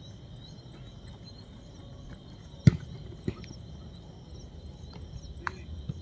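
Crickets chirping steadily and high-pitched over a low background rumble. A football is kicked with one sharp thud about two and a half seconds in, followed by a lighter knock half a second later and a faint click near the end.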